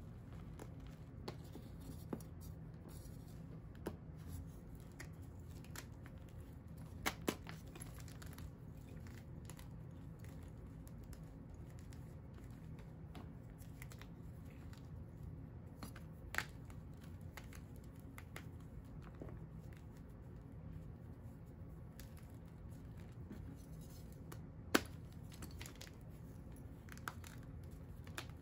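Hands crumbling and squeezing crushed pink powdery blocks in a plastic tub: soft crunching and crumbling of powder and chunks, with a few sharp clicks, two close together about a quarter of the way in and the loudest about three-quarters of the way in, over a low steady hum.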